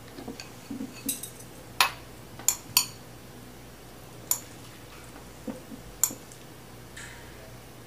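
Metal chopsticks clinking against a glass bowl while stirring noodles: a handful of sharp, ringing clinks at uneven intervals over a quiet room.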